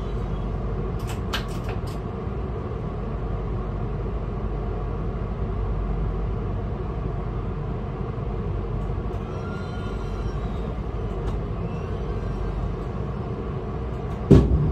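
Locomotive cab interior with a steady low rumble and hum as the locomotive creeps slowly toward a coach, with a few light clicks about a second in. Near the end comes a single loud thump as the buffers meet the coach for coupling.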